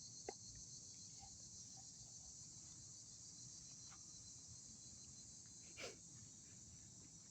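Faint, steady high-pitched chorus of crickets chirping, with a soft click near the start and another brief faint sound about six seconds in.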